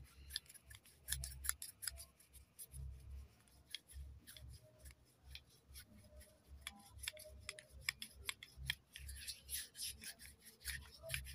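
Hands rubbing and rolling an egg between the palms: a fast run of dry scrapes and clicks, with soft low thumps as the hands press together.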